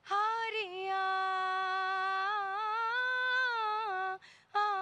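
A woman singing a cappella into a microphone. She holds one long note for about four seconds with a gentle waver, breaks off briefly, then starts a new note near the end.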